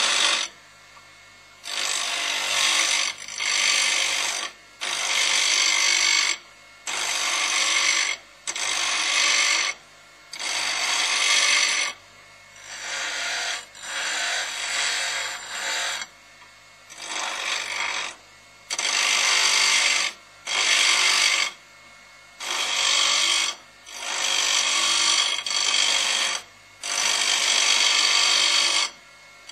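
A grinder run in more than a dozen short bursts, each one to two seconds long, with brief pauses between them.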